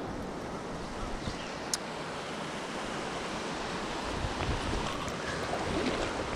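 Steady rush of a shallow, rocky mountain river, with wind buffeting the microphone.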